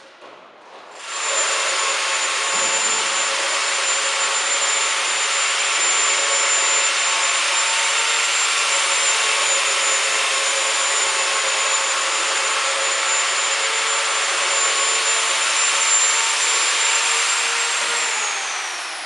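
Electric power tool starts about a second in and runs steadily at full speed with a high whine. It is switched off near the end, and the whine falls as the motor spins down.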